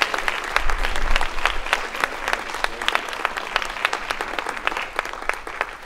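Audience applauding, dense clapping that thins out and fades away near the end.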